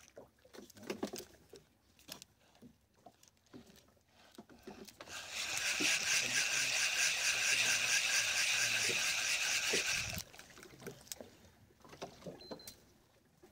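Spinning fishing reel being cranked steadily for about five seconds, starting about five seconds in: a fast even whirring with fine clicking from its gears as line is wound in. Small scattered knocks before and after.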